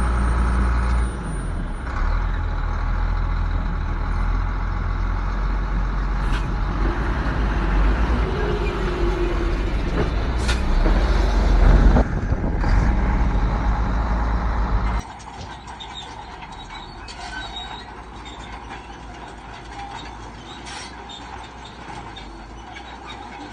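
Heavy diesel earthmoving machinery running with a loud low rumble, with a couple of short hisses near the middle. About fifteen seconds in the sound drops suddenly to a much quieter, steady engine noise.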